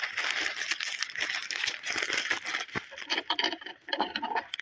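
Thin plastic courier bag crinkling and rustling as hands squeeze and turn it. The crinkling is dense at first and thins to scattered crackles near the end.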